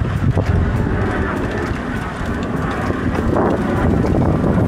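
Wind rumbling on the microphone over the rush of sea water past a sailing yacht's hull as it sails at speed.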